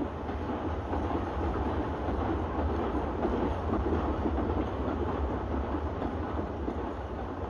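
Steam freight train passing, a steady rumble that swells toward the middle and eases off near the end.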